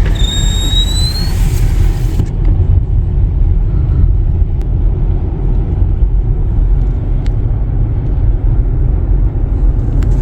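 Steady low rumble of a car on the move, heard from inside. In the first second and a half there is one high squeal, rising in pitch.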